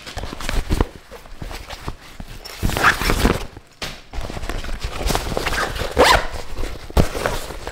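Crinkly X-Pac laminate side bag being handled: stiff fabric rustling and crinkling as hands open it and reach into the main compartment, with a few louder bursts of handling noise.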